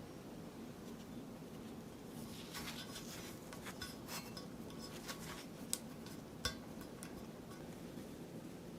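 Light clicks and clinks of small hard parts being handled, with two sharper clicks a little past halfway.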